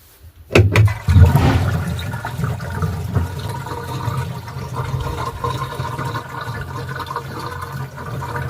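Water rushing and draining, starting abruptly about half a second in with a couple of clicks, then running steadily with a low rumble.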